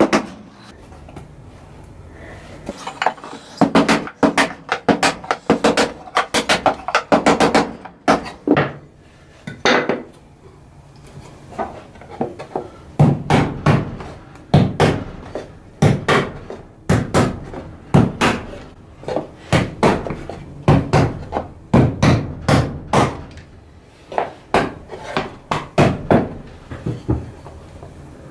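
Hammer striking a wooden block held against a wooden toy box frame to knock its joints apart: runs of sharp wooden knocks in quick succession, broken by a few short pauses.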